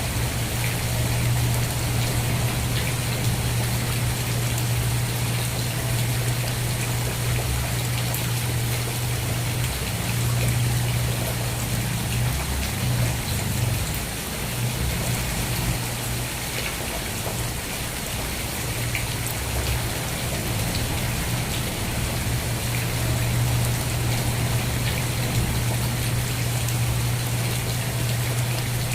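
Steady rain falling on a surface, with scattered drops ticking, over a steady low rumble.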